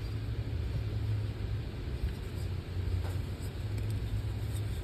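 Steady low background hum, with a few faint ticks.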